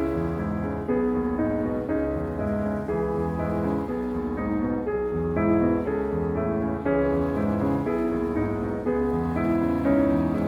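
Slow instrumental background music led by piano, with held notes changing about once a second.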